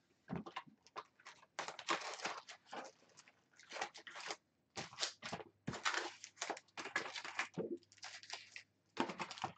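Foil-wrapped Optic baseball card packs crinkling and rustling as they are pulled by hand out of an opened cardboard box, in irregular bursts.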